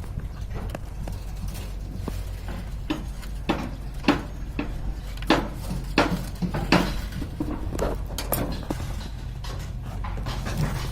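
Irregular sharp knocks and clicks, with a steady low hum behind them.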